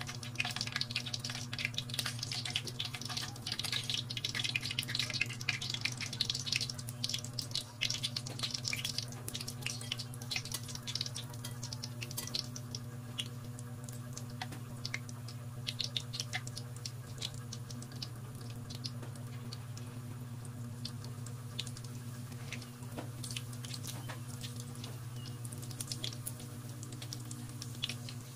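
Bread pieces deep-frying in a wok of hot oil: a dense sizzling crackle for roughly the first ten seconds, thinning to scattered pops, over a steady low hum.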